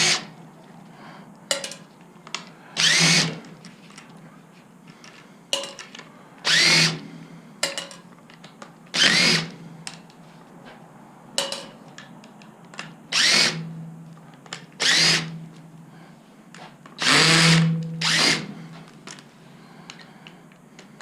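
Cordless drill backing screws out of aluminum frames in short bursts, about seven or eight in all, its motor whine rising in pitch as it spins up each time. Small knocks and clicks of handling fall between the bursts.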